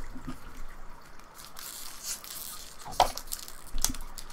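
Trading cards and a foil booster-pack wrapper being handled: a stretch of crinkling rustle, then two sharp clicks about three seconds in, under a second apart.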